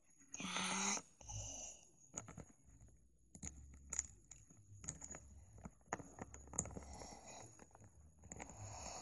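Faint handling noises of a small plastic toy figure being picked up and moved by hand: a short rustle near the start, then scattered soft clicks and taps.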